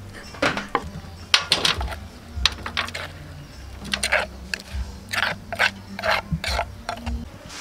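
Irregular sharp scraping strokes of kitchen utensils: a knife cutting boiled octopus on a wooden chopping board, then a spoon scraping papaya salad out of a mortar onto a metal tray.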